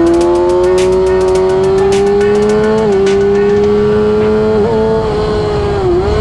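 2007 Suzuki GSX-R600's 600cc inline-four engine howling at high revs under full throttle, its note climbing slowly with brief dips in pitch about three seconds in, about four and a half seconds in and near the end. A run of sharp ticks sits over it in the first few seconds.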